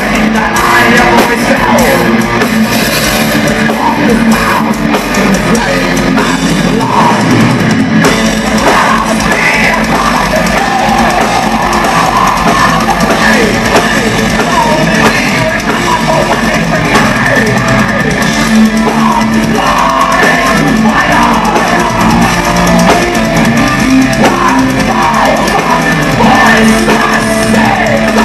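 Thrash metal band playing live at full volume, with distorted electric guitars, bass and a drum kit in a dense, unbroken wall of sound.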